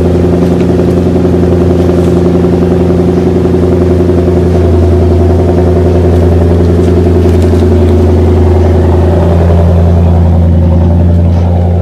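Exhaust of a Toyota Celsior UCF30's 4.3-litre V8, idling steadily from a cold start. It runs through a straight-through mid-pipe and a Three Cats rear muffler, giving a loud, steady, deep drone.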